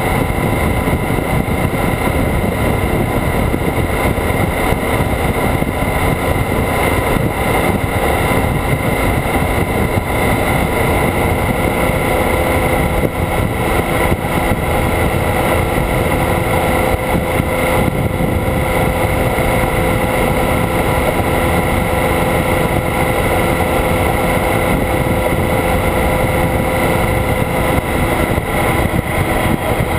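Motorcycle cruising steadily at highway speed: a constant engine drone under loud wind and road rush, with no changes in pace.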